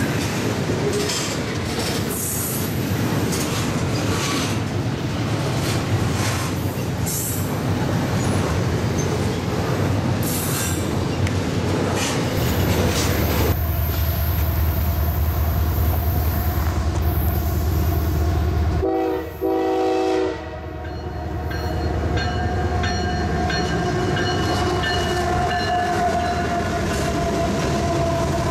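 Double-stack container cars clattering past on the rails. Around halfway through, a deeper diesel locomotive rumble builds, and about two-thirds of the way in a train horn sounds. Tones carry on as a CSX freight locomotive passes.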